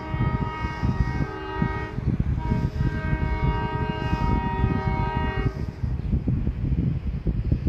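RJ Corman locomotive 1806's air horn blowing for a road crossing: a long blast, a short break about a second and a half in, then another long blast that stops about five and a half seconds in. Under it runs a heavy low rumble.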